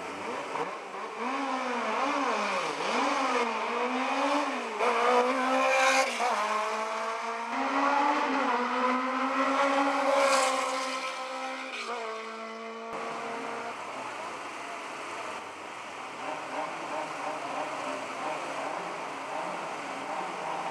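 A race car's engine revving hard, its pitch repeatedly climbing and dropping through gear changes as the car accelerates up the course and passes close by, loudest about six and ten seconds in. About thirteen seconds in the sound cuts abruptly to a quieter, steadier background with engine noise.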